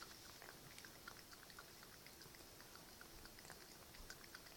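Cat lapping water from a trickling bathtub faucet: faint, quick wet clicks of the tongue, several a second, at an uneven pace.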